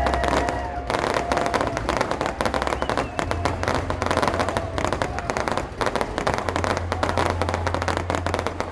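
Aerial fireworks crackling: a dense, rapid run of small cracks from crackling stars, going on without a break.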